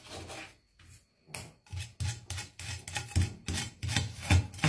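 Large kitchen knife cutting the bones out of a gilthead sea bream fillet: repeated rasping strokes of the blade through the fish, knocking against the wooden cutting board, about three a second from about a second in.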